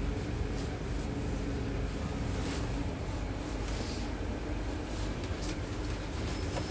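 Steady interior running noise of a Scania N280UD biogas double-decker bus on the move: low engine rumble with road and body noise, heard from inside the bus.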